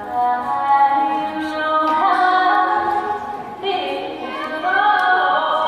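Female voice singing long held notes that step to new pitches every second or two: the recorded music accompanying the baton-twirling routine.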